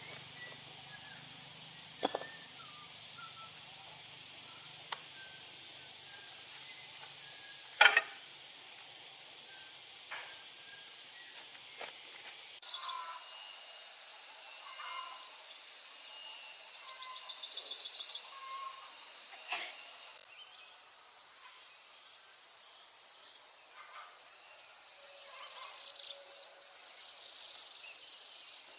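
Rural outdoor ambience: a steady high-pitched insect drone, with a few sharp clicks or knocks, the loudest about eight seconds in. Partway through, the drone turns to a harsher high hiss with a fast pulsing trill.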